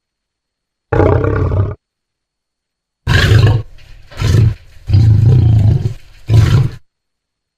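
Allosaurus roar sound effects: one short roar about a second in, then after a gap of dead silence a run of four roars, the third the longest at about a second.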